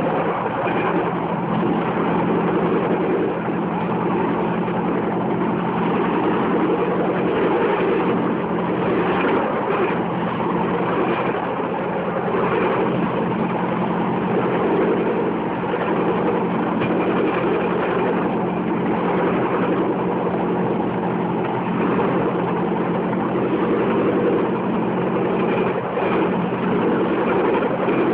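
Bamboo train's small engine running steadily as the platform rolls along the rails, a continuous drone with rattling noise over it.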